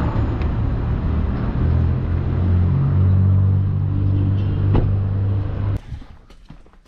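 Taxi's engine running close by with a steady low hum and street noise, and a sharp knock about five seconds in. The sound cuts off suddenly near the end, leaving only faint taps.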